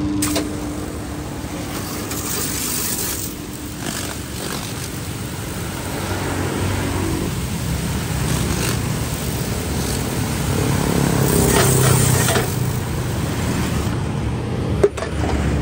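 Small electric home pressure washer with a ceramic-plunger pump running under load, its motor hum steady under the hiss of the high-pressure water jet striking concrete. The spray hiss swells twice, briefly, and a sharp click comes near the end.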